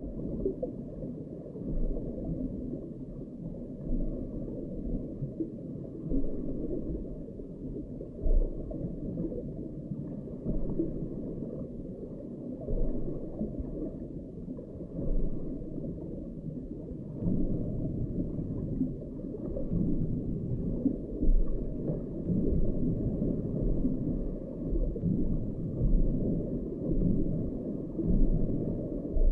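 Muffled low underwater rumble and gurgle picked up by an underwater camera's microphone beneath lake ice, rising and falling unevenly with several dull bumps.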